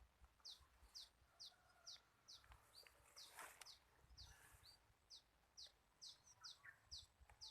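A small bird calling faintly and steadily, a run of short, high, falling chirps about two a second, with a brief rush of noise about three and a half seconds in.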